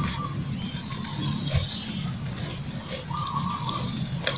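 Puppies eating cooked rice off a metal tray, snuffling and chewing, with a few light clicks.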